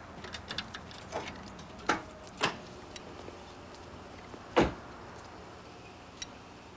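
Car door being handled: a few clicks and knocks, then the door shut with a loud thump about four and a half seconds in.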